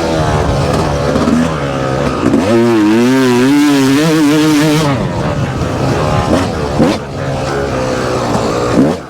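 Yamaha YZF four-stroke dirt bike engine being ridden hard, its revs rising and falling quickly as the throttle is worked, loudest and most warbling in the middle stretch.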